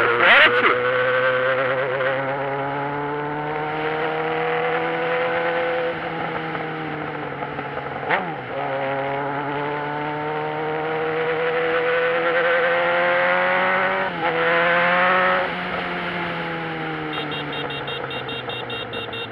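Motorcycle engine running under way, its pitch climbing steadily through each gear and dropping sharply at the shifts about 8 and 14 seconds in, then easing off. A quick run of high beeps near the end.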